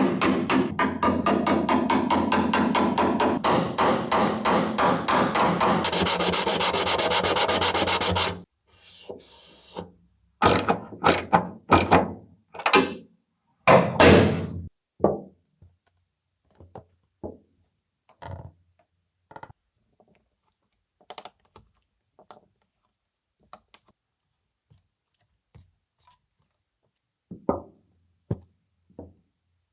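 Rapid, even scraping strokes on car bodywork for about eight seconds, stopping abruptly. After that come a handful of separate short scrapes and knocks that grow sparser and fainter.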